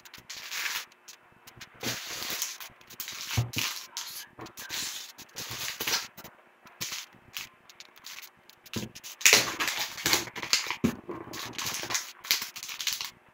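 Plastic food packaging crinkling and rustling as packets and bags are handled and shifted about in a cardboard box, in irregular bursts with brief pauses, the loudest about nine seconds in.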